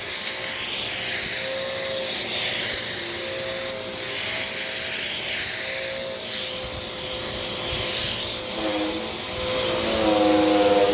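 Dirt Devil Power Max vacuum cleaner running steadily, its high motor whine swelling and dipping every second or two as it works over a fabric couch cushion.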